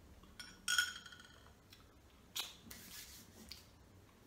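A metal spoon clinks against a glass mug of cappuccino, the glass ringing briefly after the second clink. About two seconds later comes a short, hissy rustle.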